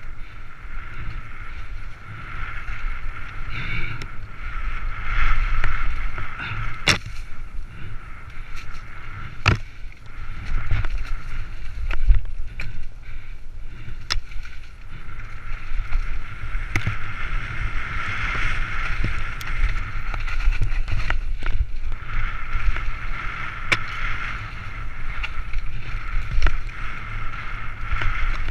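Mountain bike ridden fast down a dirt singletrack, heard from a helmet camera: steady rumble of the tyres and wind on the microphone, with sharp knocks and rattles of the bike over bumps and roots all the way through. A higher-pitched buzz runs underneath and fades twice for a few seconds.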